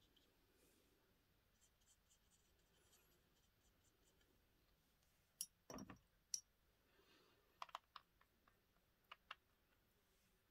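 Near silence with a few small, sharp clicks and taps from the desk: a cluster about halfway through and several more shortly after.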